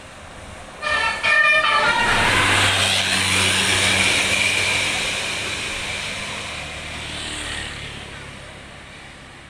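A bus's Basuri multi-tone horn sounds two short blasts about a second in. The bus then passes close, its engine and road noise loud at first and slowly fading away.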